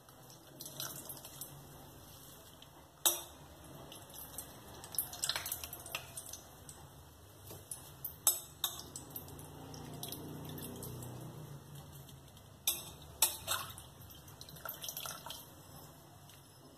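Water splashing and dripping as soaked lentil fritters are lifted by hand out of a steel bowl of water and squeezed out, with a few sharp clinks against the steel dishes.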